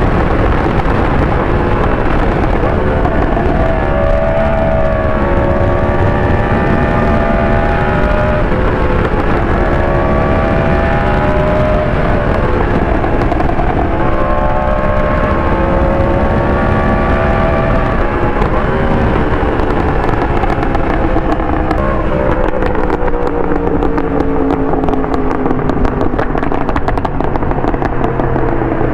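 Yamaha R1 inline-four engine under hard riding: its pitch climbs and drops several times as it accelerates through the gears. After about 19 s the revs fall away, and a rapid crackle of exhaust pops and bangs runs over the deceleration.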